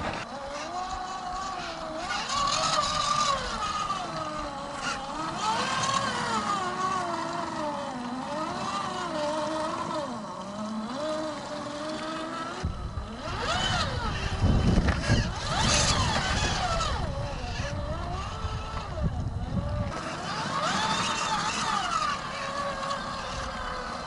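Electric motor and two-speed gearbox of an RC4WD Trail Finder 2 scale crawler whining, rising and falling in pitch with the throttle as the truck scrabbles and struggles up wet rocks. About halfway through, a heavy low rumble of wind buffeting the microphone comes in for several seconds.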